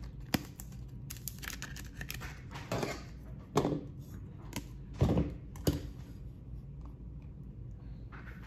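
Hard plastic trading-card holders and clear acrylic display stands being handled and set down: a series of small plastic clicks and knocks with light rustling, the loudest knocks about three and a half and five seconds in.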